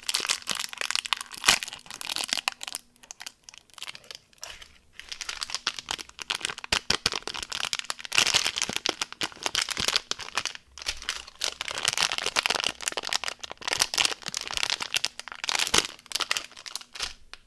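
Plastic candy wrappers and packaging being crinkled and handled, a dense crackle of sharp clicks with a couple of short lulls; it stops just before the end.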